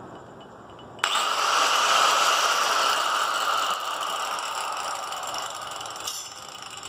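Angle grinder switched on about a second in, its motor and disc running at speed with a steady high whine, easing off slightly near the end.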